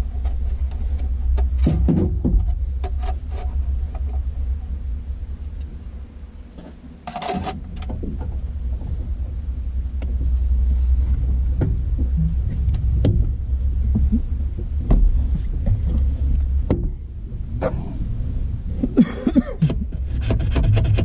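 Knocks, clicks and scraping from work inside a car as a wire-fishing rod carrying the stereo power wire is pushed through the body. There are two longer scrapes, about a third of the way in and near the end, over a steady low rumble.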